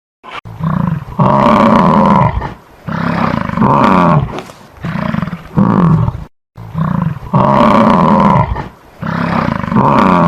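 A loud animal calling over and over, a quick run of pitched calls each up to about a second long.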